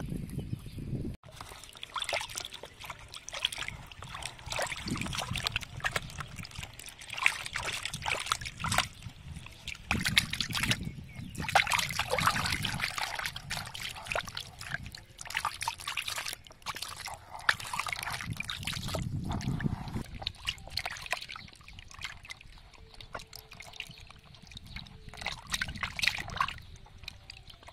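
Hands washing a scaled whole fish in a plastic basin of water, with irregular splashing, sloshing and trickling as the fish is rubbed and turned.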